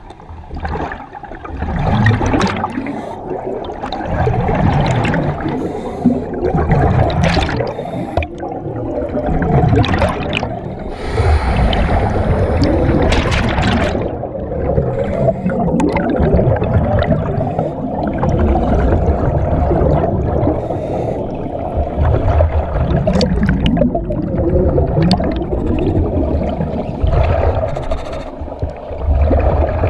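Diver breathing in a surface-supplied Kirby Morgan diving helmet underwater: exhaust bubbles rush and gurgle out in irregular bursts over a deep rumble.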